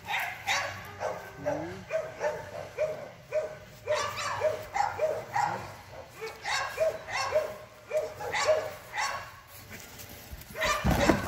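Pit bull barking over and over in short, excited barks, about two a second, while held back at the start line before a wall climb. A loud low thump near the end.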